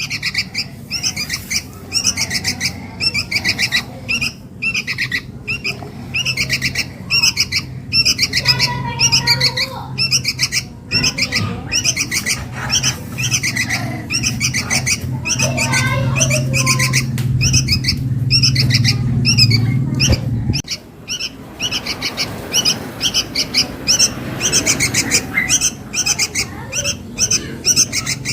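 Sooty-headed bulbul (kutilang) chicks giving begging calls to their parent: rapid chirps in short runs, repeated over and over. A low hum sounds underneath and cuts off suddenly about twenty seconds in.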